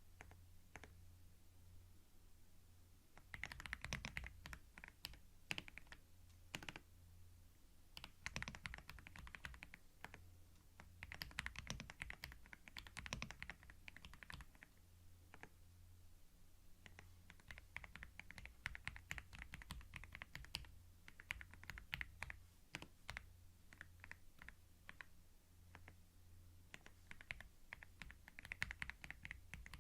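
Typing on a computer keyboard: quick runs of key clicks lasting a few seconds each, broken by short pauses, with the first run starting about three seconds in. A steady low hum lies underneath.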